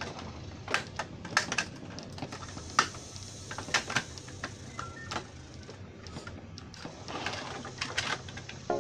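Plastic toy track pieces clicking and knocking as they are handled and snapped together, in irregular single clicks with a brief scraping rustle about seven seconds in.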